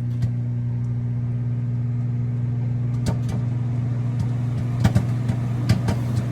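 Microwave oven running with a steady hum while the popcorn bag inside starts to pop. The pops are scattered and sharp: a lone one near the start, then more often from about three seconds in.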